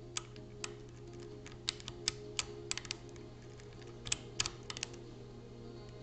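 Lock pick clicking against the pins inside a Mauer MLS euro-profile lock cylinder as it is picked: irregular light metal clicks, bunched in quick clusters about two seconds and four seconds in.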